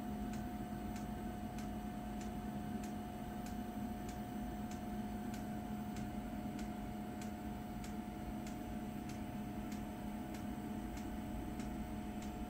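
Electrical equipment on a test bench humming steadily, with a light tick repeating about every half second.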